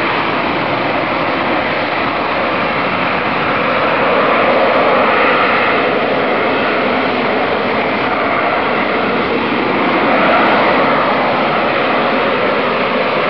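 AV-8B Harrier's Rolls-Royce Pegasus vectored-thrust turbofan running loud and steady in slow flight, a dense jet rush with a hiss on top. It swells slightly about four seconds in and again near ten seconds.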